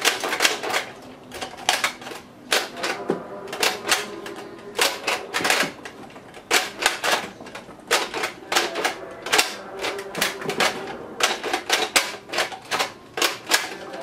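Hard plastic clicking and clattering as foam darts are handled in the drum magazine of a toy dart blaster: quick irregular clicks, a few a second.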